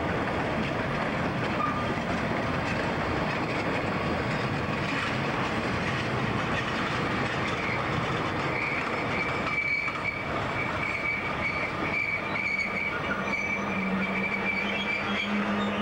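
Freight train cars rolling on the rails with steady wheel noise. About halfway through, a high steady wheel squeal sets in and holds almost to the end, and near the end a low steady hum joins it.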